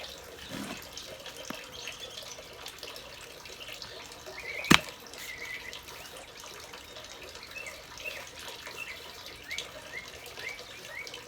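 Small birds chirping in short rising notes, with a single sharp click about four and a half seconds in.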